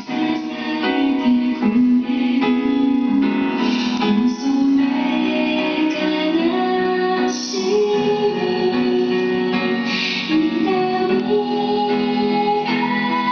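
Background song: a woman singing a slow melody over instrumental accompaniment.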